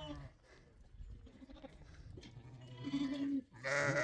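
Sheep bleating, a flock of ewes and lambs: one call tails off at the start, then after a quiet stretch two more bleats come about three seconds in, the second one louder.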